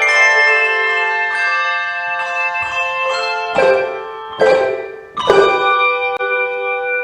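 Handbell choir ringing overlapping bell chords whose tones sustain and ring on. Midway through, three loud chords are struck about a second apart; the ringing fades just before the last one.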